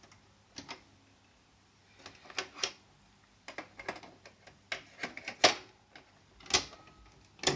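Cassette transport keys and mechanism of a Sharp GF 525 double-cassette boombox being worked by hand: a series of sharp mechanical clicks and clunks, the loudest about five and a half and six and a half seconds in.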